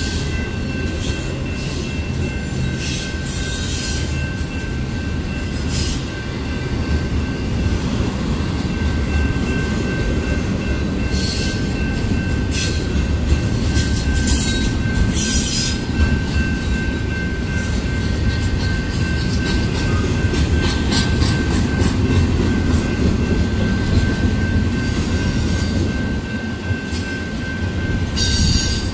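A double-stack intermodal freight train's well cars rolling past at close range: a steady heavy rumble of wheels on rail, with a thin steady high squeal and brief high screeches every few seconds.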